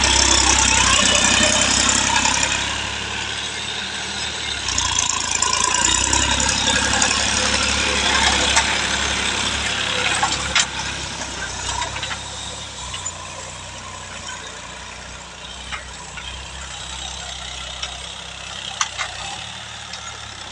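Massey Ferguson 9500 tractor's diesel engine running under load as it drags a tine cultivator and levelling plank through loose soil. Loud while close, then fading from about halfway through as the tractor moves away, with a few sharp clanks.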